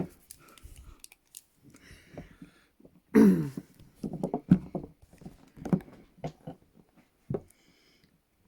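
Wordless voice sounds, loudest about three seconds in, with a few small clicks from metal handcuffs being handled and double-locked.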